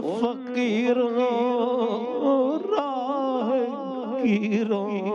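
A man's voice singing a naat, Urdu devotional poetry in praise of the Prophet, into a microphone, drawing out long held notes that waver and slide in pitch.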